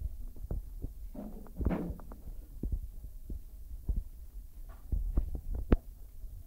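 Handling noise from a hand-held phone microphone: a steady low rumble with irregular soft thumps, and one louder stretch about a second and a half in.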